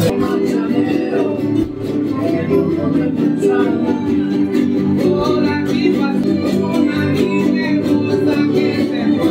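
Music on plucked string instruments such as guitar, strummed in a steady rhythm, with a singing voice.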